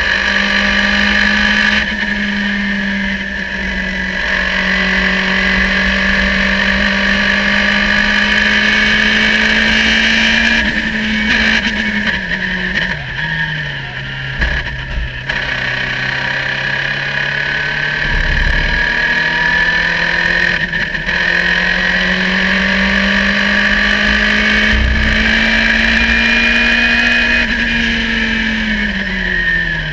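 Onboard sound of a Radical sports-racing car's engine at racing speed, with wind rush. The engine runs at high revs, drops in pitch as the car slows for a corner about twelve seconds in, then climbs steadily as it accelerates, and falls again near the end. A couple of low thumps come along the way.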